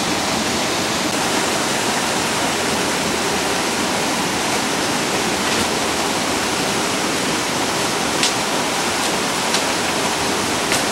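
Steady rush of cascading water, with a few light clicks near the end.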